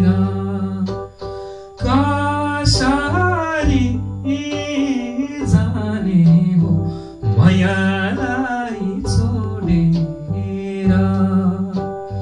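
A man singing a Nepali folk song to his own electronic keyboard accompaniment of held chords, bass and a steady beat. The voice comes in about two seconds in and pauses briefly near the middle.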